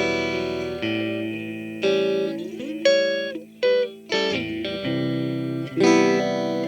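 Electric guitar played through a Flamma FS05 modulation effects pedal: chords and single notes are picked and left to ring, struck about seven times, with a couple of sliding notes in the middle.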